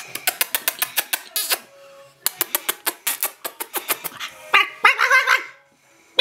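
A person imitating a monkey: quick runs of clicking chatter, two in a row, then a short high-pitched call near the end.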